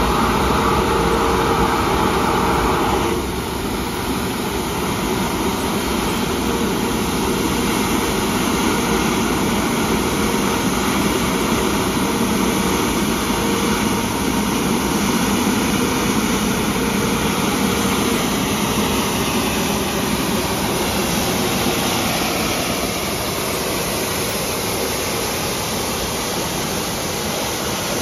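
Bucher Municipal V65 truck-mounted road sweeper working: a steady, loud rushing of its engine and suction fan, with the gutter brush scrubbing the road surface. About three seconds in a steady hum drops out and the sound becomes slightly quieter.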